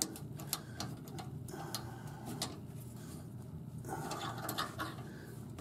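Ratchet wrench clicking in short, irregular runs as a thread tap is worked back and forth, cutting threads into a bolt hole in a car frame.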